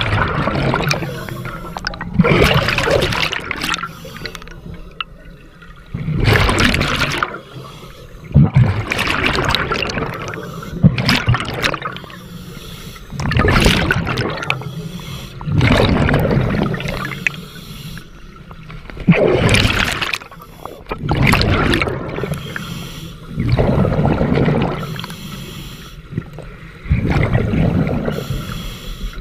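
Open-circuit scuba diver breathing through a regulator underwater: a gurgling rush of exhaust bubbles on each breath out, every two to four seconds, with quieter hissing breaths in between.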